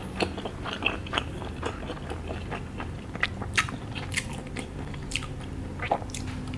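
Close-miked chewing of a mouthful of skewered Thai-style sausage: irregular short mouth clicks and smacks, a few each second.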